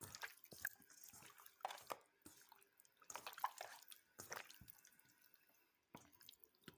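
Faint, irregular wet squelches and smacks of raw marinated chicken breast being kneaded and turned by hand in a metal bowl.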